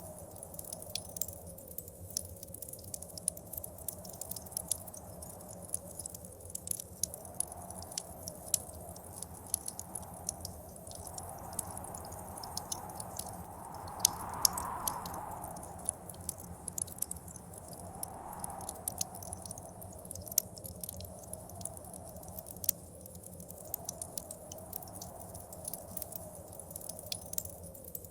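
Wood fire crackling with frequent sharp pops, over blizzard wind that rises and falls in gusts, the strongest gust about halfway through.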